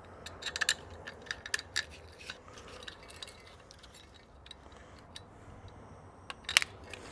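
Small steel screws dropped into the screw holes of a Carter AFB carburetor's aluminum top cover, making scattered light metallic clicks and clinks. Most fall in the first two seconds, with a couple more near the end.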